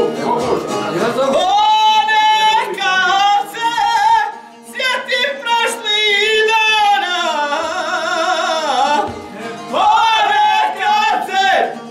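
Men singing a traditional folk song: long drawn-out notes that slide up and down in pitch, with short breaks for breath about four and nine seconds in.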